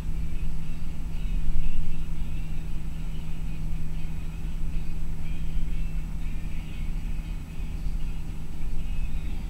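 Inside a bus driving along a highway: a steady engine hum over low road rumble, swelling briefly about a second and a half in.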